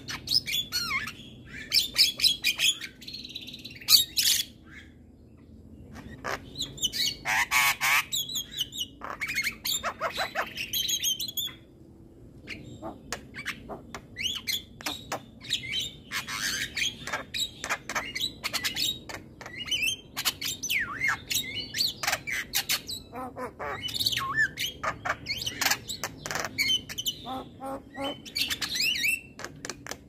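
A Javan myna singing a long, varied song of rapid clicks, rattles, harsh squawks and whistles, with brief pauses about five seconds in and again around twelve seconds.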